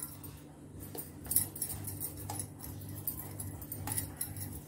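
Hands working soft, steamed rice-flour dough into balls in a steel plate: a few faint, scattered taps and knocks, the loudest about a second and a half in, over a steady low hum.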